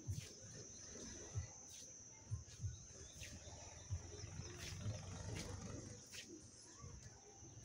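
Quiet outdoor ambience: soft, irregular low thumps of footsteps on a paved platform, under a steady high-pitched hum, with a few faint sharp clicks.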